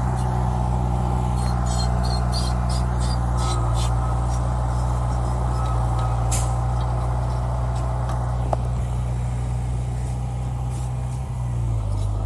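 Heavy diesel earthmoving machinery running steadily with a low drone, with a quick run of short sharp hisses about two seconds in and one more about six seconds in. The engine note dips briefly near the end.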